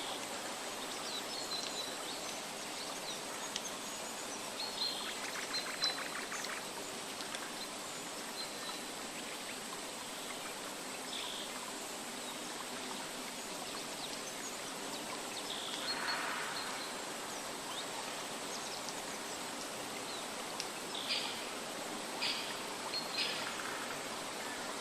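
Nature ambience of steadily flowing water, like a stream, with short bird chirps now and then, several coming close together near the end.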